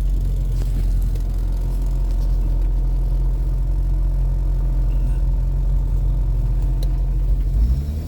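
MG Midget engine running steadily with a low, even rumble; its pitch shifts just before the end.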